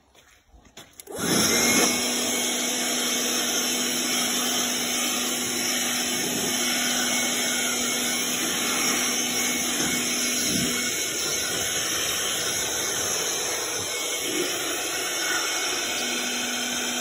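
Mastercraft 20V cordless air blower switched on about a second in. Its fan motor then runs steadily with a rush of air and a low hum.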